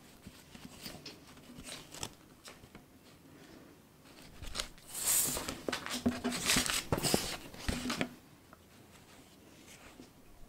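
Stiff cross-stitch canvas rustling and crinkling as it is unfolded and smoothed flat by hand, with a loud burst of crackling rustles lasting about three seconds in the middle and softer handling rustles before and after.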